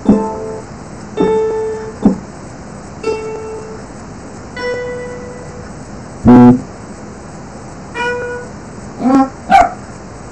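A string of short sound clips from Scratch's sound library playing one after another as they are previewed: several single piano-like notes, a louder, deeper burst about six seconds in, and two quick rising chirps near the end.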